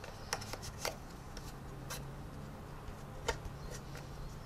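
A few light, scattered clicks and rubbing from a plastic scale-model helicopter tail boom being handled and wiped with a kitchen towel to take off the clay wash, over a faint steady low hum.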